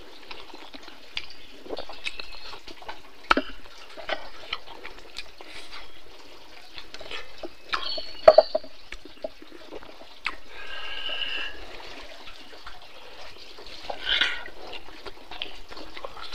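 Close-up wet chewing and lip-smacking of someone eating pork ribs and rice by hand, with many small irregular mouth clicks. The sharpest smacks come about eight seconds in, and a brief pitched sound comes near the eleven-second mark.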